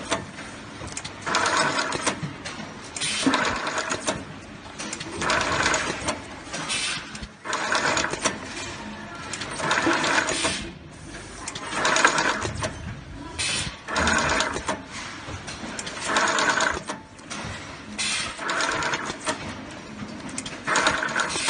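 Automatic wire-harness taping machine running repeated wrapping cycles: a short whir from its motor-driven tape head about every two seconds, one for each wire bundle taped.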